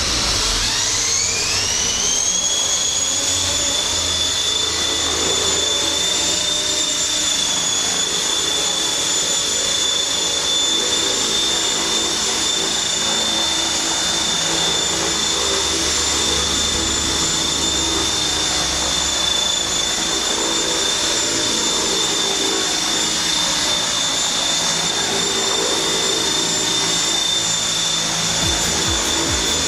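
Century Evolution 180 SE electric RC helicopter spooling up, its high whine rising in pitch over the first two seconds, then holding steady as the rotor runs at speed on its newly replaced main gear. The whine dips slightly at the very end.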